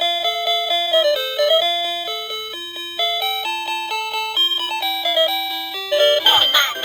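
A simple electronic chime melody played in plain, steady beeping notes, like a toy's sound chip.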